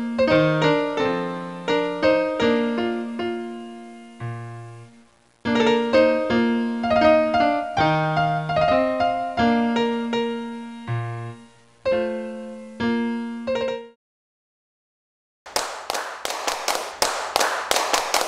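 Background piano music, a light tune of struck notes that fade away, which stops about fourteen seconds in. After a short silence, nearly three seconds of dense crackling noise made of many quick clicks follow.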